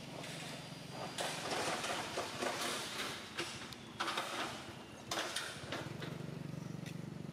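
Rustling and crunching on dry leaves and gravel in several bursts, followed from about two-thirds of the way in by a steady low hum.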